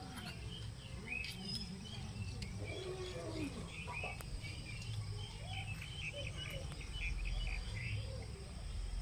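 Birds chirping and calling, with a quick run of short repeated chirps around the middle, over a steady low rumble of outdoor background noise.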